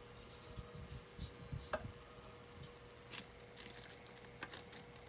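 Irregular light clicks and taps with a few soft low thumps, over a faint steady hum.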